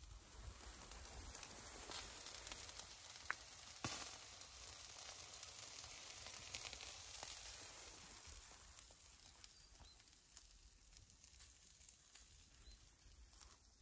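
Marinated chicken in a wire grill basket sizzling over embers, with two sharp pops about three to four seconds in. The sizzle fades away over the second half.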